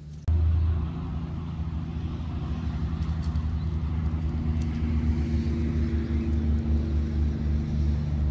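Low, steady background music that starts suddenly a fraction of a second in, made of sustained bass notes held at fixed pitches.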